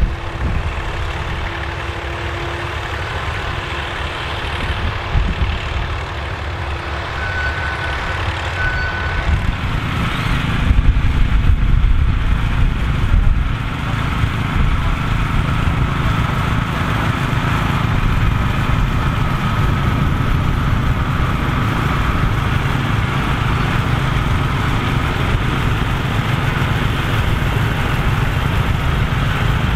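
Tractor engines running steadily under load. First comes a pair of Bukh 403 tractors coupled in tandem pulling a plough; about ten seconds in, the sound switches to two Massey Ferguson 12 garden tractors coupled in tandem, which are louder.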